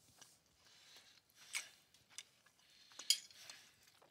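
A person eating close to a headset microphone: soft chewing and mouth sounds broken by a few sharp clicks, the loudest about three seconds in.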